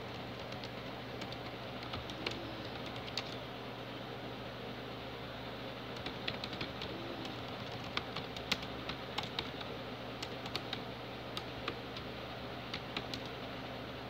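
Typing on a computer keyboard: keystroke clicks come irregularly, a few at a time, and are thicker towards the middle, over a steady low hum and hiss.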